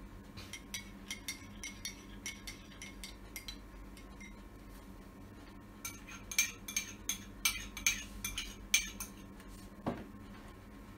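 A spoon clinking and tapping against a container while coffee and conditioner are scooped and mixed. The clicks are light and scattered at first, then a quicker, louder run of clinks comes from about six to nine seconds in.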